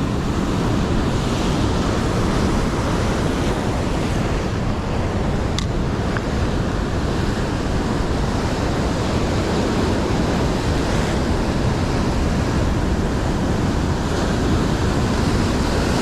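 Rough sea surf washing against shore rocks, with strong wind buffeting the microphone: a steady rushing noise, broken by one short click about five and a half seconds in.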